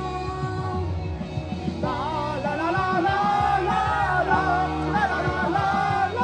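Amplified J-pop song with a female voice singing over the backing track; the vocal line comes in strongly about two seconds in.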